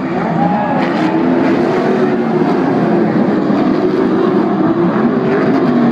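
A pack of Pro Lite off-road race trucks running hard past the grandstand: several engines at high revs at once, their pitches wavering as the drivers work the throttle.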